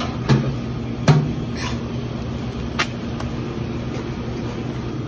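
Metal spatula knocking and scraping on a steel flat-top griddle, four sharp clacks in the first three seconds, the loudest about a second in, over a steady low hum.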